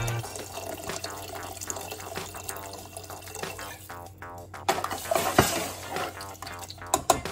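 Water pouring from a jug into an aluminium pressure cooker of dal, rice and vegetables. In the second half a spoon stirs the mix, with a few sharp knocks against the pot.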